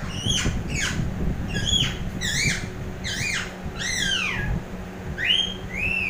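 Indian ringneck parakeet calling: a quick series of short, high calls, each rising and then falling in pitch, over a steady low background rumble.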